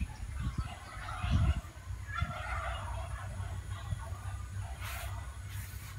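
Domestic fowl calling in a quick, chattering run of calls about one to three seconds in, over a low rumble.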